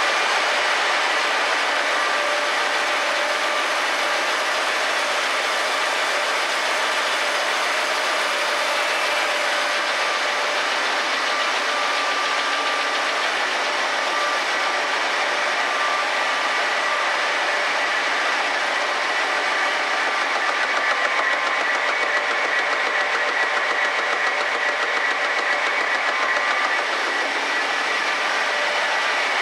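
MAN Cromoman 70 web offset printing press running in production: a steady mechanical din with a few high whining tones held over it.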